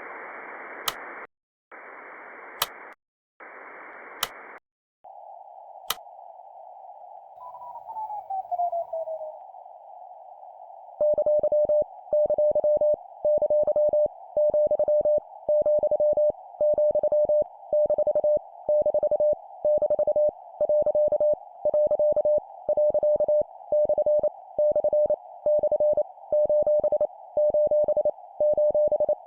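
Morse code (CW) sent at 25 words per minute: a steady tone near 600 Hz keyed in quick dots and dashes, in short groups, over a band of radio-receiver hiss. The groups are punctuation marks, each sent three times. The code begins about eleven seconds in. Before it come three bursts of hiss separated by sharp clicks, then hiss with a tone sliding down in pitch.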